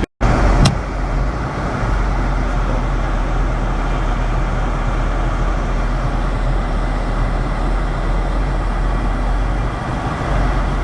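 Steady rain noise over a low vehicle engine rumble. Just after the start the sound drops out for an instant, followed by a single click.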